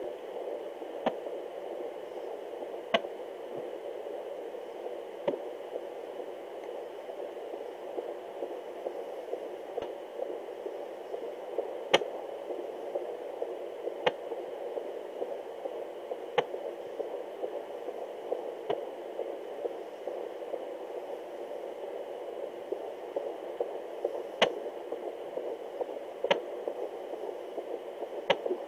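Home fetal Doppler picking up a 24-week baby's heartbeat as a steady pulsing hiss, with a sharp click every two seconds or so: the baby's hiccups.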